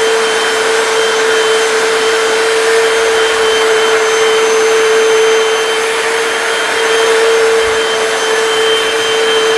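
A Hoover PowerDash hard floor cleaner runs steadily. Its suction motor gives a constant whine over a wide rushing noise as it scrubs and sucks up a stain on the tile floor.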